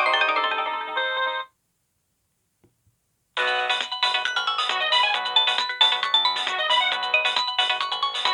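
Samsung SGH-X660 mobile phone ringtones: one melody ends about a second and a half in, there is a short gap with a faint click, and a new, busier melody with several notes at once starts a little over three seconds in.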